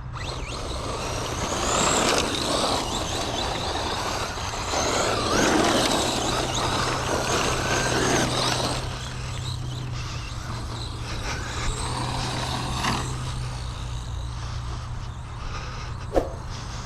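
Brushless RC short course truck (Team Associated Pro2 SC10, 4000 kV motor) driving on gravel: the electric motor's whine rises and falls with the throttle over the scrabble of tyres on stones. There is a single sharp knock near the end.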